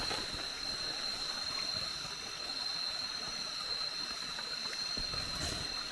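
Night-time tropical forest ambience: a constant high-pitched insect drone over an even background hiss.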